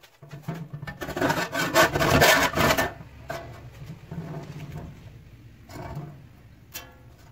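A saw cutting through the sheet steel of a clothes-dryer door: fast rasping strokes, loudest for the first few seconds, then lighter and more broken.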